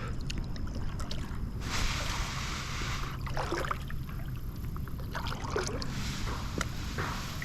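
Water lapping and splashing against a kayak hull, with small drips and gurgles, over a steady rumble of wind on the microphone.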